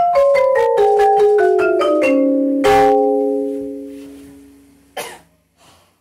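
Marimba duet playing a fast descending arpeggio run, about six mallet strokes a second, ending on a final struck chord a little under three seconds in that rings out and fades over about two seconds. A short knock follows about five seconds in.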